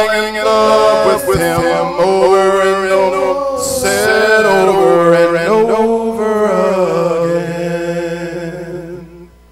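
Men's voices singing a gospel song into microphones, drawing out the long closing notes, which fade away near the end.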